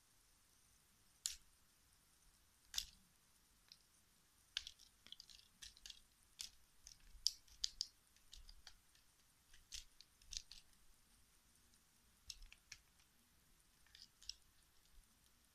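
A cat biting and clawing at a small toy tied to the end of a stick: faint, irregular clicks and crinkling crackles, thickest in the middle.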